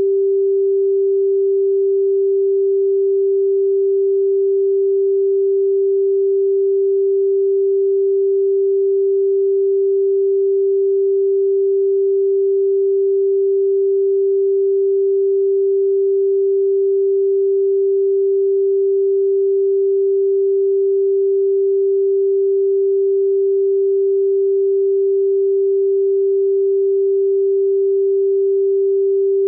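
A steady pure sine tone at 392 Hz, the note G4, held unchanged.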